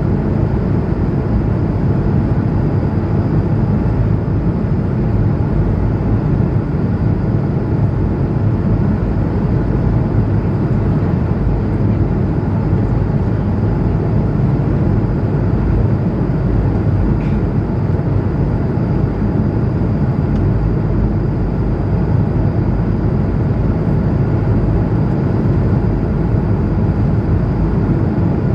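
Steady cabin noise inside an Airbus A220-100 airliner in flight: a constant low rumble of its geared turbofan engines and airflow past the fuselage.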